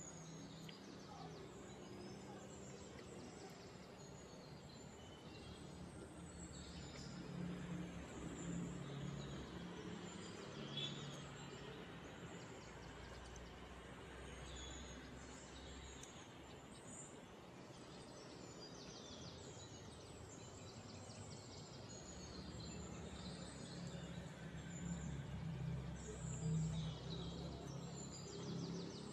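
Outdoor ambience: a steady low hum under faint, scattered bird chirps.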